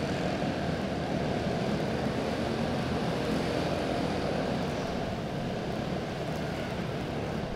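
Several quarter midget race cars' small single-cylinder Honda engines running on the track together, a steady buzzing drone that eases slightly toward the end.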